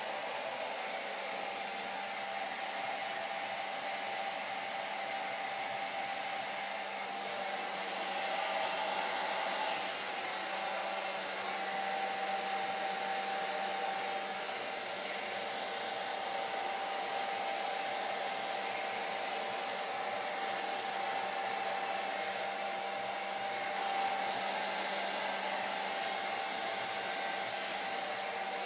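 Hair dryer running steadily: a continuous rush of air with a constant motor tone.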